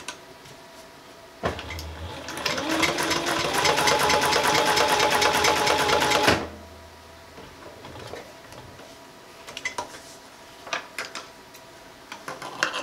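Tuff Sew industrial walking-foot sewing machine on a servo motor, stitching through four layers of marine vinyl with heavy V92 thread and a size 21 needle. About a second and a half in, the motor whirs up in pitch and runs steadily with rapid needle strokes for about five seconds, with no sign of strain, then stops abruptly. A few faint clicks follow, and scissors start snipping the thread near the end.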